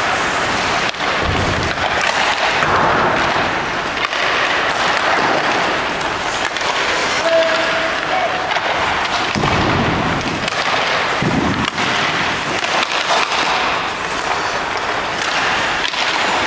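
Ice hockey rink din: a steady wash of crowd voices and skate noise with scattered sharp knocks, typical of pucks and sticks hitting pads and boards.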